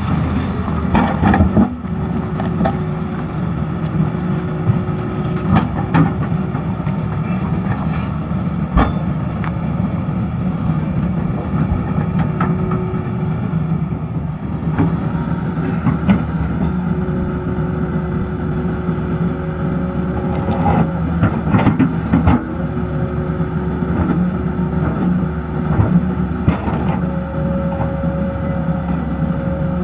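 Tata Hitachi excavator's diesel engine running steadily under work, with a higher steady tone that comes and goes and a few sharp knocks or clanks here and there.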